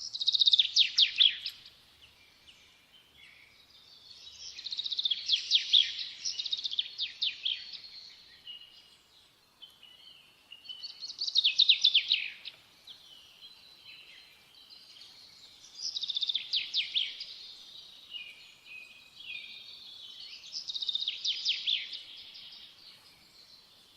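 A songbird singing: five phrases of high, rapid chirping trills, roughly every five seconds.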